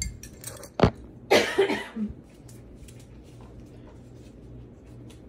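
A sharp knock just under a second in, then one short cough from a person about a second and a half in, followed by quiet room tone with a faint low hum.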